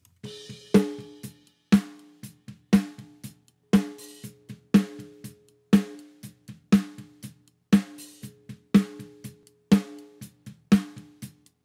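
Recorded snare drum top-mic track played back: one loud snare hit about every second, with quieter strokes between. Each hit leaves a sustained humming ring, a resonance of the snare that the engineer places at about 424 Hz and means to notch out with EQ.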